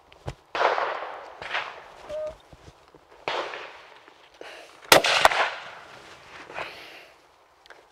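Double-barrelled hammer shotgun fired twice in quick succession, a third of a second apart, about five seconds in. Several fainter, echoing shotgun bangs come before it.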